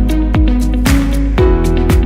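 Background music with a steady beat: upbeat electronic or funk-style track with regular drum hits over sustained synth and bass notes.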